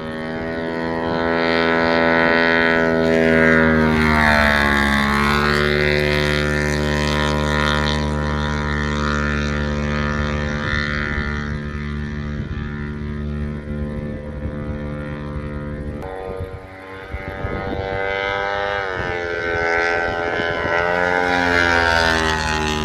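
Light single-engine propeller plane flying low passes: the engine and propeller drone grows louder and drops in pitch as the plane goes by about four seconds in, runs steadily while it is farther off, then swells and drops in pitch again as it passes close near the end.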